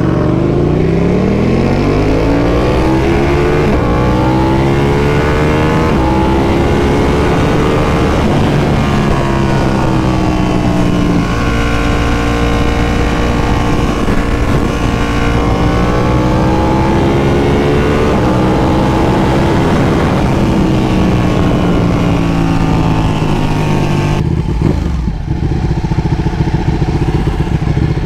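Ducati 1299 Panigale S Anniversario's L-twin engine, heard from the rider's seat, accelerating through the gears with its pitch climbing. It then runs at a steady cruise, and the pitch falls as the bike slows about twenty seconds in.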